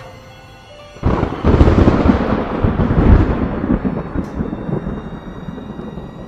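A sudden loud rumbling boom about a second in, fading slowly over several seconds, over dark, eerie background music.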